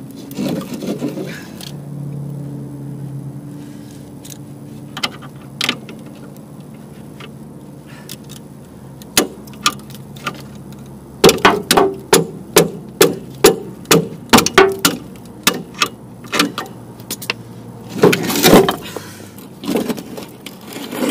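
Metal knocking and clanking as the last rusted suspension bolt is worked loose and a Chevy Tracker's rear axle comes free. Scattered clicks come first, then a quick run of loud knocks, about three or four a second, for several seconds past the middle, and a louder clatter near the end.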